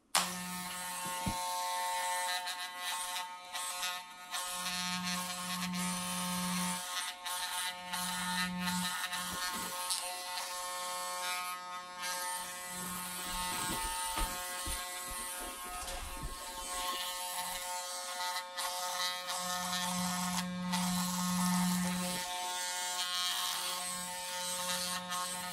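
Wahl electric hair clipper running with a steady buzz as it cuts hair. A lower hum comes and goes several times.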